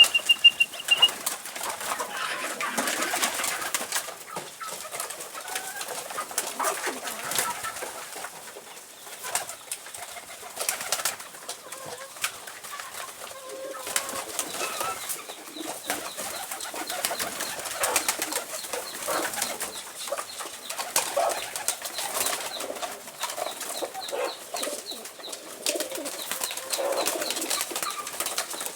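Domestic pigeons cooing, with wings flapping and many small clicks and scuffs of birds moving about.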